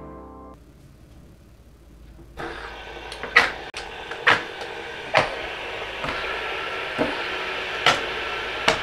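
Fidget spinners flicked into spin one after another on a tabletop: a sharp click about once a second as each one is set going, over a steady whir of the spinning bearings that starts a couple of seconds in.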